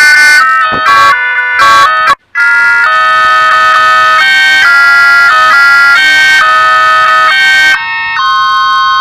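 Panasonic cordless phone ringtones passed through a heavy audio effect: loud electronic melodies of steady beeping notes, several pitches sounding together and changing a few times a second. One tune cuts off about two seconds in and, after a brief break, another begins.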